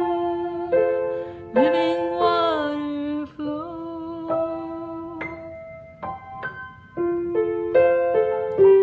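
Piano played slowly, single notes and chords struck and held, in a quiet worship-style improvisation.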